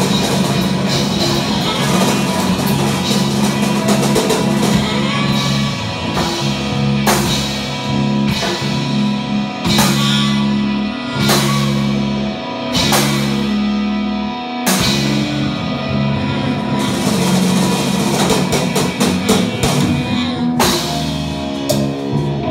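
Live rock band playing: drum kit and electric guitar over sustained low notes, with a run of loud cymbal-crash accents about every second and a half through the middle.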